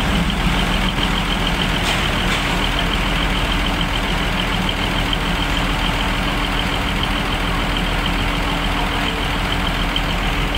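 Diesel railcar engines idling steadily, a constant low hum with a fast, even high-pitched pulsing over it.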